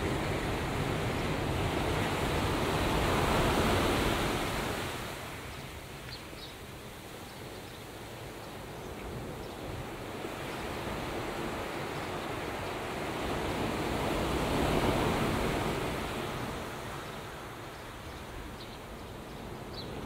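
Water rushing, with wind noise on the microphone; the rush swells and eases twice, about eleven seconds apart.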